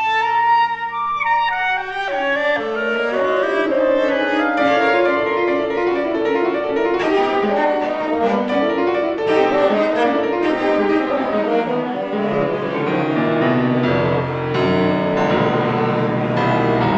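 Contemporary chamber music played live by a quintet of clarinet, horn, viola, cello and piano, with bowed strings and piano to the fore in a busy passage of many short notes. Held notes step downward in the first couple of seconds, and a low sustained note comes in underneath about twelve seconds in.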